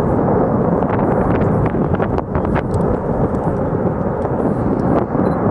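Lava fountain jetting from a volcanic vent: a loud, continuous, rushing rumble of escaping gas and spatter, broken by scattered sharp cracks.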